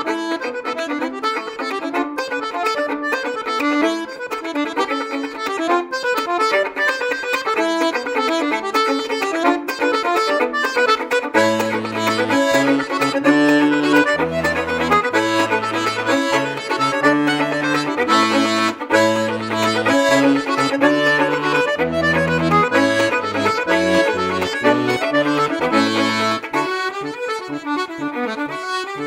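Danish folk tune played on accordion and fiddle. A low bass line joins about twelve seconds in and drops away near the end.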